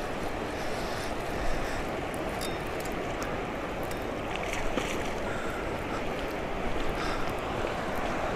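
Steady rush of a shallow river flowing over stones.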